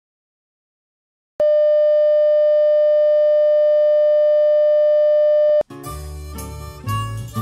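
Dead silence, then a loud, steady electronic tone held at one mid pitch for about four seconds that cuts off abruptly. Music starts straight after, near the end.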